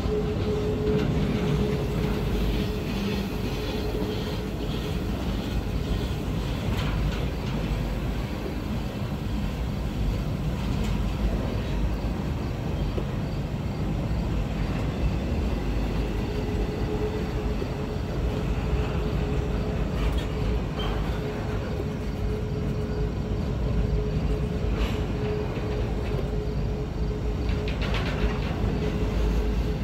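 Empty intermodal well cars of a freight train rolling past, a steady rumble with a thin, steady whine from the wheels that fades out early and comes back about halfway through.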